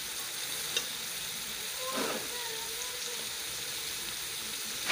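Sliced carrots frying in ghee in an aluminium pot, a steady faint sizzle, with one short click of the metal spoon about a second in.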